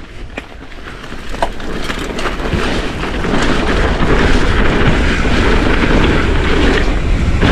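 Wind rushing over the camera microphone and tyres running on a dirt trail during a fast mountain bike descent, growing louder over the first few seconds as speed builds and then holding, with a deep rumble and a few sharp clicks and knocks from the bike.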